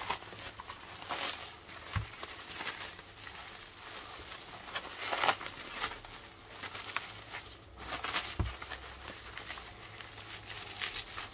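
Plastic stretch film and bubble wrap crinkling and rustling in irregular bursts as the wrapping is pulled and peeled off a parcel by hand.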